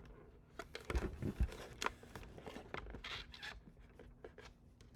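Plastic clicks, knocks and scrapes of the portable fan's water tank being gripped and twisted to unlock it, in irregular bursts with the busiest stretch around one to two seconds in.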